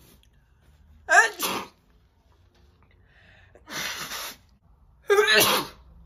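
A woman sneezing: a loud sneeze about a second in, a softer breathy burst a little before the four-second mark, and another loud sneeze near the end.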